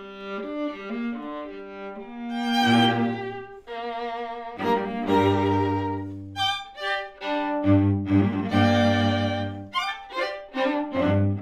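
String quartet (two violins, viola and cello) playing. Quick detached notes give way about two and a half seconds in to loud held chords with wide vibrato over long low cello notes. The chords are broken twice by brief runs of fast short notes.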